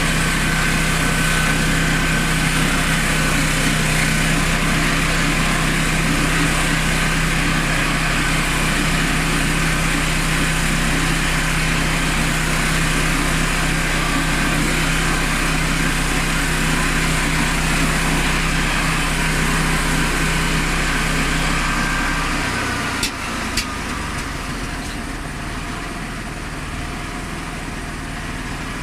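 Honda GX390 single-cylinder petrol engine running steadily under load, driving a homemade portable sawmill through an oak log with a steady high whine. About 22 seconds in, the load drops: a couple of sharp clicks, the whine stops, and the engine runs on more quietly, settling toward idle.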